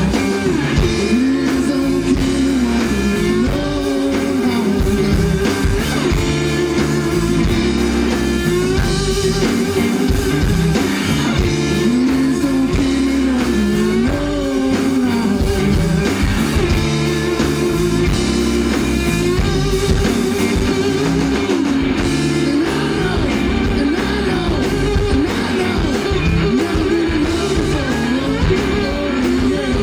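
Live blues-rock band playing electric guitars and drums, with a lead line that bends up and down in pitch over a steady rhythm.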